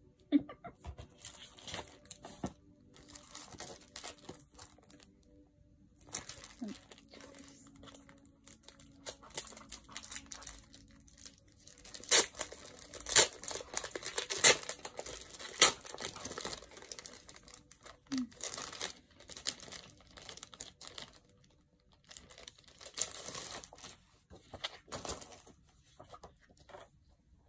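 Sheets of paper and packaging rustling and crinkling as they are handled, in spurts with short pauses, with a run of sharper, louder crackles in the middle.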